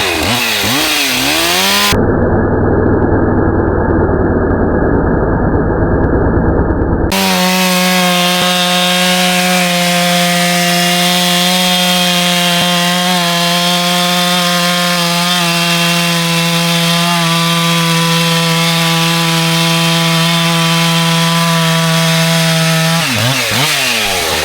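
Two-stroke chainsaw cutting through lake ice: it revs up, goes muffled for a few seconds, then holds a steady high-pitched full-throttle run, and drops back in pitch near the end as the throttle is released.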